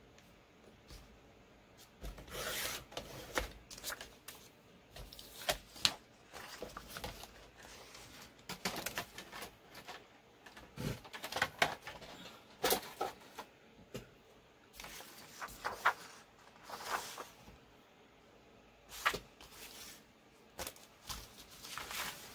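Sheets of paper being handled, rustling and sliding against each other and the craft paper underneath, in irregular bursts with a few sharp taps.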